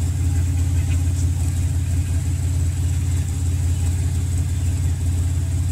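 Car engine idling steadily, heard at the tailpipe as an even low rumble. The engine has a leaking head gasket, which the owner says lets coolant into the cylinders to burn, giving faint white exhaust smoke.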